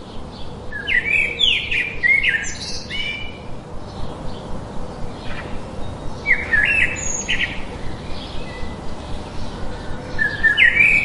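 Songbird chirping in quick bursts of sharp notes, three bouts a few seconds apart, over a steady low background rumble.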